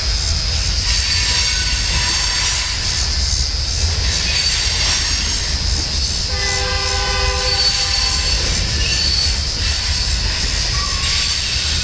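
Manifest freight train cars rolling across a railway bridge: a steady low rumble with a constant high-pitched wheel squeal. About six seconds in, a locomotive horn sounds one chord blast lasting about a second and a half.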